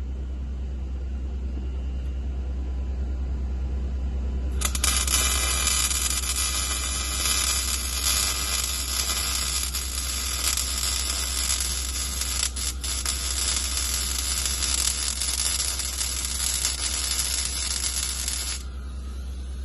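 Electric welding arc crackling and hissing steadily, striking up about four and a half seconds in and cutting off about a second before the end, over a steady low hum.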